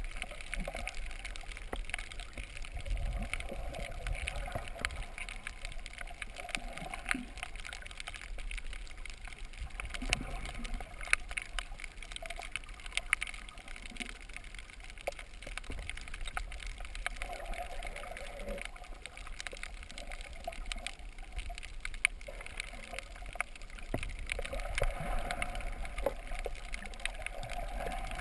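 Underwater sound through a GoPro's waterproof housing: a muffled, steady low wash of moving water with many scattered sharp clicks and crackles.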